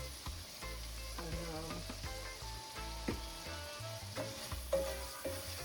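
Scallion, onion, garlic, ginger, thyme and tomato frying in oil and butter in a hot pot, sizzling steadily as they are stirred, with a few sharp knocks of the spoon against the pot.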